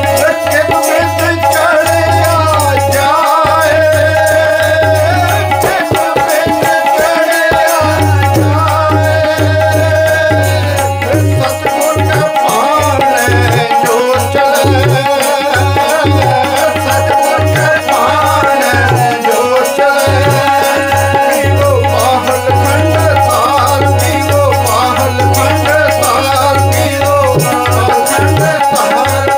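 Sikh kirtan: a man sings a devotional hymn over the steady drone of a harmonium, with tabla keeping the rhythm.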